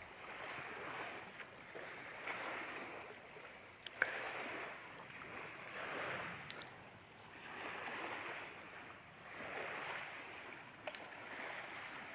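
Small waves washing in on the shore, the wash swelling and fading about every two seconds, with one sharp click about four seconds in.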